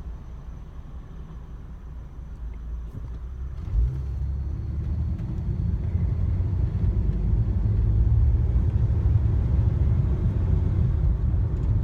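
Low rumble of a vehicle in motion heard from inside the cabin, with a short thump about four seconds in, after which the rumble grows steadily louder as the vehicle picks up speed.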